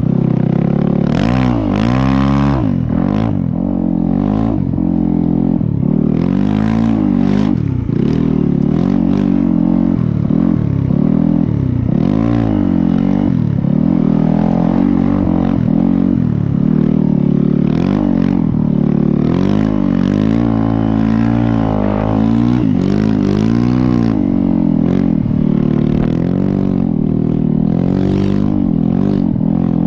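Snow bike's dirt-bike engine being ridden hard, its pitch rising and falling over and over as the throttle is worked, with short bursts of hiss between.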